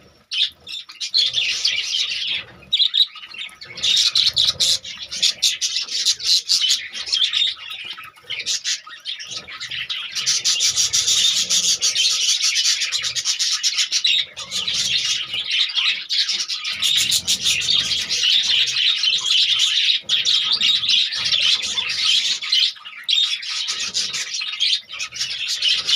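A flock of budgerigars chattering and chirping all at once, a dense, continuous warble of many birds that sets in just after the start.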